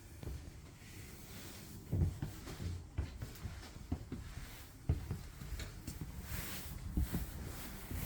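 Footsteps on the floor of a fifth-wheel camper, with handling noise from a carried camera: soft low thumps roughly once a second, the loudest about two seconds in.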